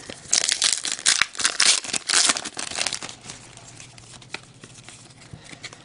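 Baseball card pack wrapper being torn open and crinkled in the hands, a dense crackling that lasts about three seconds, then quieter handling of the cards with a few small clicks.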